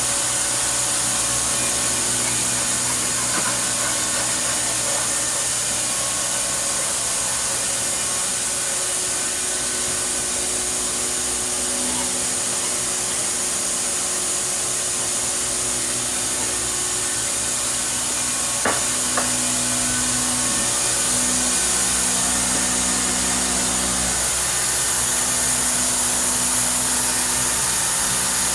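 Fadal VMC4020 vertical machining center running under power: a steady mechanical hum and hiss, with tones that shift now and then. Two sharp clicks come about two-thirds of the way in.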